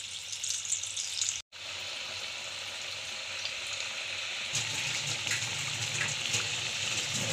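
Moong dal and cabbage pakoras deep-frying in hot oil: a steady sizzle with fine crackling as the batter bubbles. The sound cuts out for an instant about a second and a half in.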